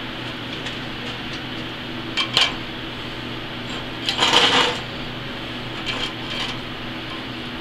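A steel combination square clinking and clattering against a steel plate as it is handled and set down: a couple of sharp clicks, then a longer, louder metallic clatter about halfway through, then a few lighter clicks. A steady hum runs underneath.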